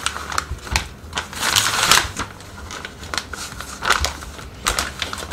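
Plastic vacuum storage bag crinkling and rustling as a spool of 3D-printer filament is worked into it, with a few light knocks and clicks from the handling.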